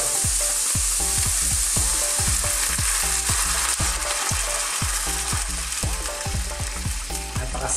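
Chicken strips and chicken livers sizzling steadily in hot oil in a frying pan.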